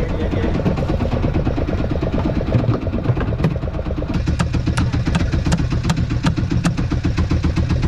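A fishing boat's engine running steadily with a fast, regular beat. A run of light sharp clicks, about three a second, sounds over it in the second half.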